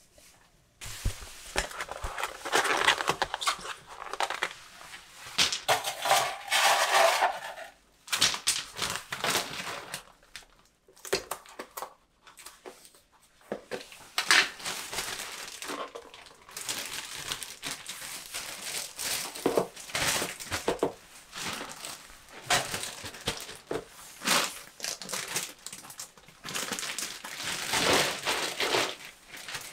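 A clear plastic zip-top bag crinkling and rustling in irregular handfuls while a lidded plastic food container is handled and slipped inside it, with short pauses between bouts.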